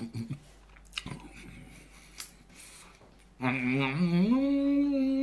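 Chewing and crunching on fried chicken, with small clicks for about three seconds. Then a loud, drawn-out voice-like tone comes in, rises in pitch and holds steady.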